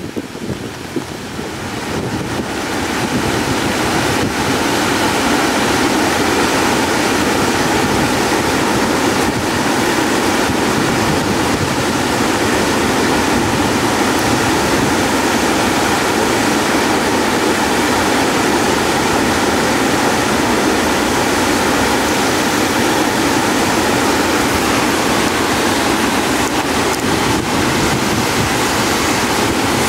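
Steady, loud rush of a rain-swollen river in flood, with white water churning through a dam's open spillway gates and over rapids. It builds over the first few seconds, then holds level.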